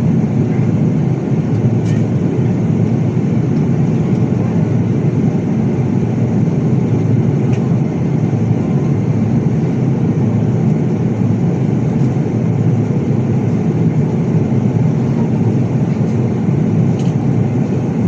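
Steady jet airliner cabin noise heard from a window seat over the wing: the underwing turbofan engine and rushing airflow during the climb after takeoff, a constant low rush with no change.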